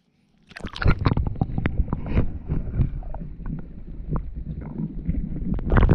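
Close handling noise on an action camera: a dense run of knocks and rubbing against the camera with a low rumble, mixed with water sloshing as hands work in shallow water right by the lens. It starts about half a second in and is loudest near the end.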